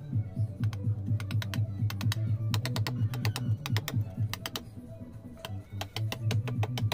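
Steel chisel driven by quick, light mallet taps into soft natural carving stone: a rapid run of sharp knocks, about five a second, that thins out briefly near two-thirds of the way through while the chisel is repositioned, then picks up again.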